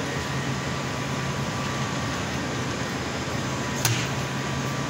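Steady background hum and hiss of the store, with one sharp click just before four seconds in as a hand opens the glass door of a countertop pizza warmer.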